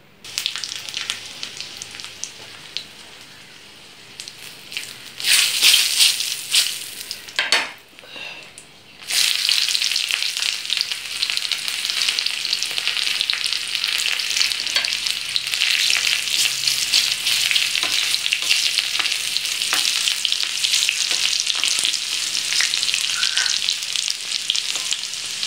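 Mustard seeds frying in hot coconut oil in a small iron pan: a soft sizzle at first, then loud crackling around five to eight seconds in as the seeds pop. About nine seconds in, dried red chillies go into the oil and it breaks into a loud, steady sizzle, stirred with a wooden spoon.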